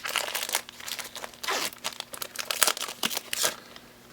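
Foil Pokémon trading card booster pack wrapper crinkling and tearing open, a run of irregular crackles that stops about three and a half seconds in.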